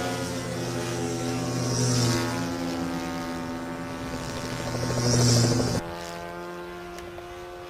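Radio-controlled model aircraft engine running with a steady buzz that swells and fades in loudness a few times. About three quarters of the way through it drops suddenly to a quieter, steady drone.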